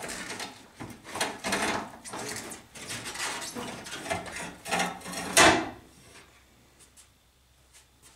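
Plastic and metal clattering and scraping as a car's radiator and cooling-fan assembly is worked loose and lifted out of the engine bay, with a sharp, loud knock about five and a half seconds in. The clatter stops about six seconds in.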